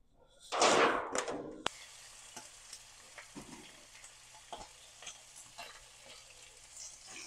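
Seasoned chicken pieces searing in hot olive oil in a stainless steel frying pan. A loud burst of sizzling comes about half a second in as pieces go into the oil and ends in a sharp click, then a steady, softer sizzle with occasional light clicks.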